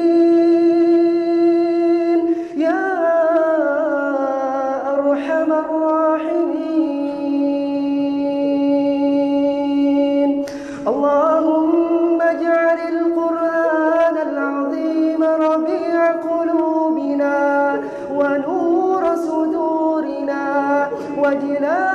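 A man chanting an Arabic du'a (supplication) in slow, long held notes with melodic glides. There is a short pause for breath about halfway through.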